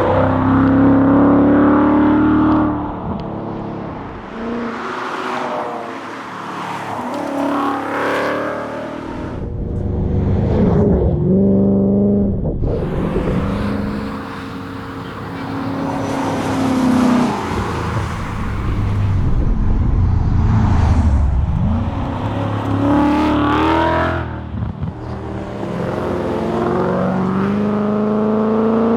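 Ford Mustang engine being driven hard: it repeatedly revs up through the gears and drops back as the driver lifts off, about five times.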